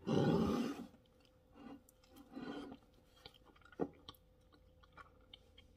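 A person biting into and chewing a cinnamon bun. The loudest part is in the first second, followed by faint, scattered chewing and mouth clicks.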